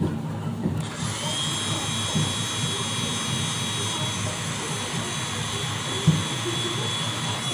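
A small electric power tool's motor starts about a second in and runs steadily, with a high thin whine.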